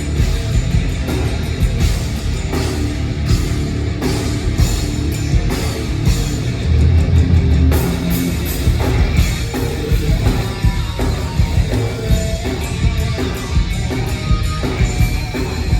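Loud live rock band playing: distorted electric guitars over a driving drum kit, with heavy bass.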